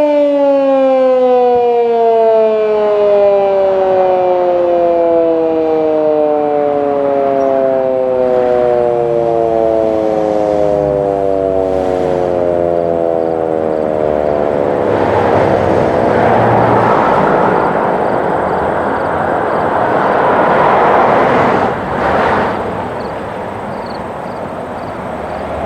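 Federal Signal Canadian Model 2 electromechanical fire siren winding down at the end of its test cycle, its tone falling steadily in pitch for about fourteen seconds as the rotor coasts to a stop. A hiss rises and falls in the second half as the siren fades out.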